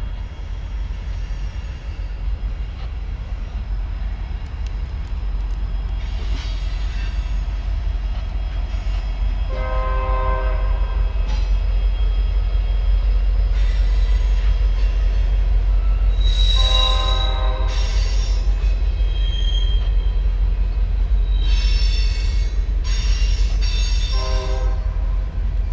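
Freight cars of an ore train rolling past with a steady low rumble, broken several times by short, high-pitched squeals from the wheels.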